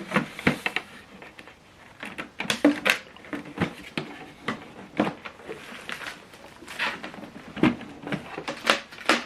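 Irregular clicks, knocks and rustles of hands handling a USB cable and fitting its plug into a printer's USB port.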